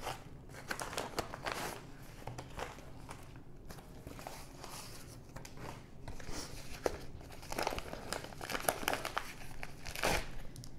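Padded kraft bubble mailers being handled and opened by hand: the paper and bubble lining crinkle and rustle in irregular crackles, loudest near the end.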